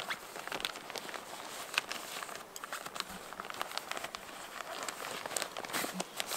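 Synthetic fabric rustling and crinkling as a sleeping bag is stuffed down into a dry bag, with many small irregular crackles.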